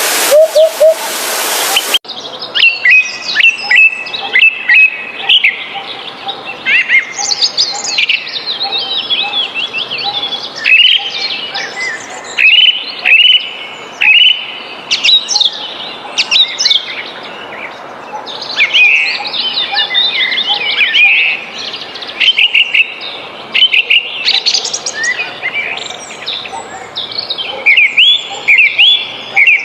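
Songbirds chirping and trilling in a rapid, busy chorus of many short high notes. A loud rushing hiss fills the first two seconds before the birdsong.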